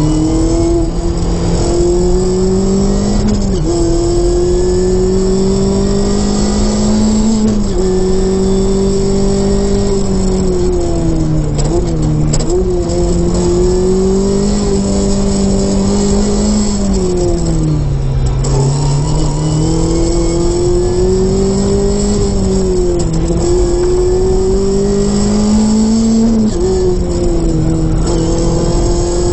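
Modified Mazda MX-5 ND's 2.0-litre four-cylinder engine, with a custom 4-into-1 exhaust manifold and Cobalt muffler, being driven hard. The revs repeatedly climb and drop back at gear changes, with a deeper dip about two thirds of the way through as the car slows for a corner before pulling again.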